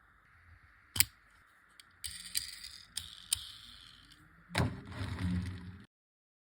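Clicks and light rattles from handling a small die-cast toy car and its packaging. There is a sharp click about a second in, a run of small clicks from about two to four seconds, then a louder knock and rustle near the end.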